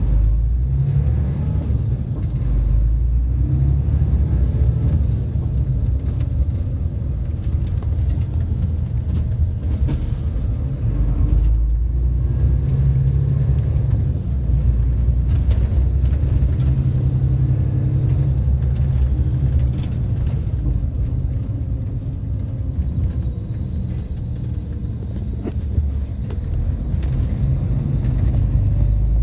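Lorry engine running and road rumble heard from inside the cab while driving, a steady low drone.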